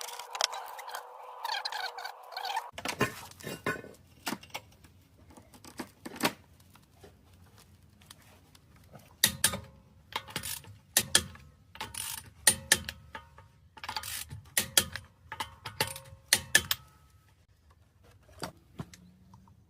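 Hand tools clicking and knocking on metal in irregular bursts over a low steady hum, from work on the car's front suspension. A different, thinner sound fills the first few seconds.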